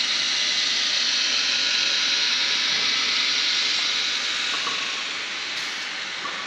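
Steady, loud hiss of rushing air from a CNC router machine, easing off a little over the last couple of seconds.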